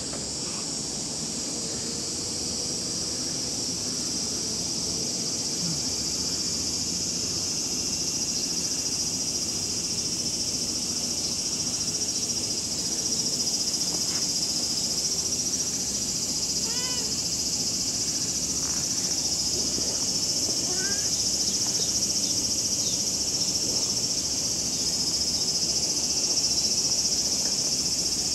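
Steady, high-pitched drone of summer insects. A single short cat meow comes a little past halfway through.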